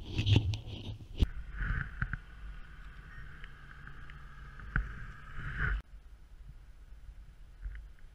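Microlight tow trike's engine running steadily, with a sharp knock and handling noise about a second in; the engine sound cuts off suddenly about six seconds in.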